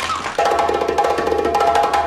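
Background music: a quick run of clicking, wood-block-like percussion over a held chord, coming in about half a second in.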